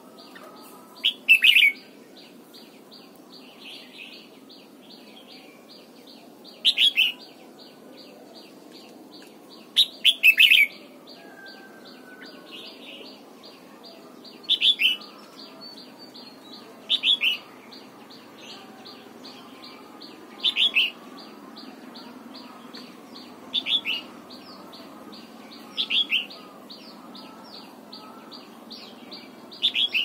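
Red-whiskered bulbul singing short, loud, clear phrases, about ten of them, every two to four seconds, over a steady fast high-pitched ticking.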